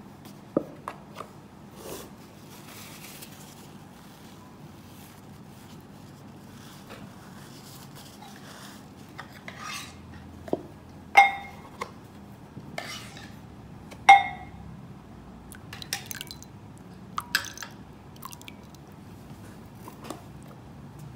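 Scattered clinks and knocks of dishes and cutlery over low room hiss, the two loudest being ringing clinks about eleven and fourteen seconds in.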